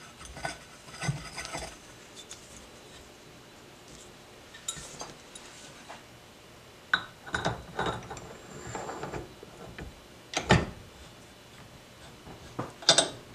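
Irregular metallic clinks, clacks and knocks of a steel hand tool and bench vise against a cast-aluminium Harley-Davidson Panhead cylinder head as it is handled and clamped. The loudest knocks come about ten seconds in and again near the end.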